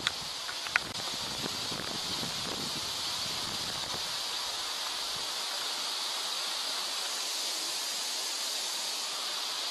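Steady high-pitched outdoor hiss, with two short clicks in the first second.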